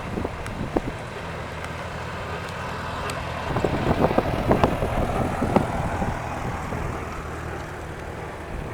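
Farm tractor engine running steadily, with wind buffeting the microphone.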